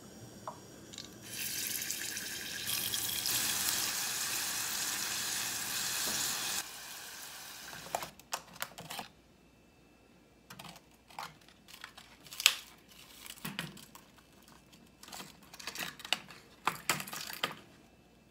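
Flour-coated leafy greens frying in hot oil in a saucepan: a steady sizzle that starts about a second in and stops about six and a half seconds in. Then scattered clicks and light knocks of a glass and a plastic ice tray being handled.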